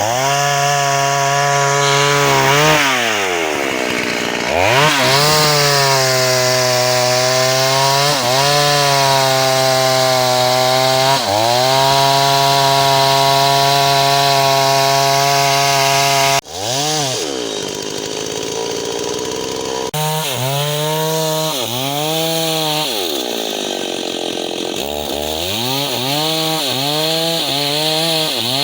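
Two-stroke chainsaw cutting timber. The engine runs at high revs and drops in pitch again and again as the chain bites into the wood, then climbs back. The dips come more often in the second half.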